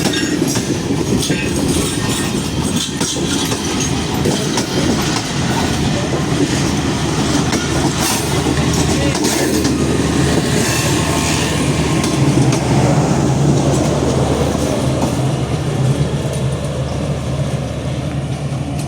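A train running on the rails: a steady low engine drone, with clicks from the wheels over the track in the first few seconds.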